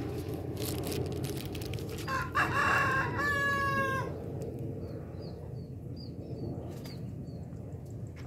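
A rooster crows once, a call of about two seconds that ends about four seconds in. Faint short chirps of small birds repeat after it.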